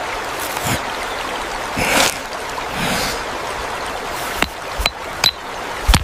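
Shallow river running over stones with a steady hiss, and from about two-thirds of the way in, several sharp clicks of stone knocking on stone.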